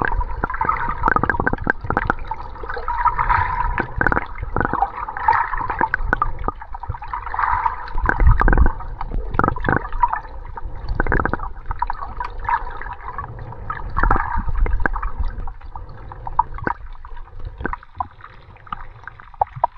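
Water gurgling and sloshing, heard muffled underwater while swimming, with irregular knocks and thumps.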